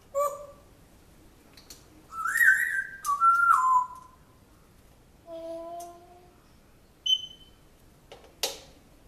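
African grey parrot whistling: a string of separate short whistled notes, some gliding up and down, a lower held note in the middle and a brief high pip, followed by a sharp click near the end.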